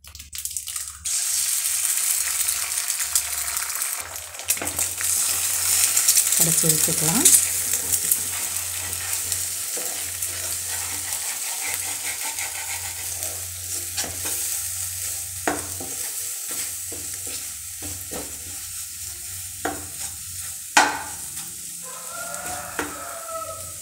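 Eggs sizzling in hot oil in a nonstick frying pan while being scrambled with a spatula. The sizzle is strongest in the first several seconds and slowly dies down, with a few sharp knocks of the spatula on the pan in the second half.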